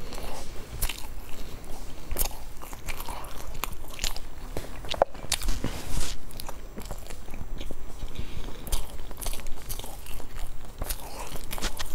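Biting and chewing a rolled pastry, with many sharp, irregular crunchy crackles from the bites.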